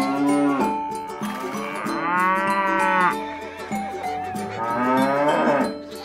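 Cow mooing sound effect: three long moos, each about a second long and rising then falling in pitch, over faint background music.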